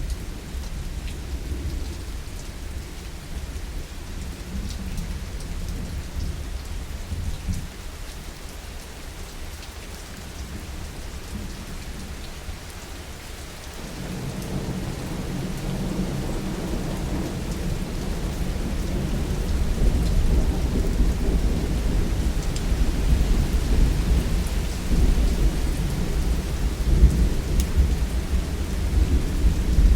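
Heavy rain falling steadily with rolling thunder, the low rumble building from about halfway through and loudest near the end.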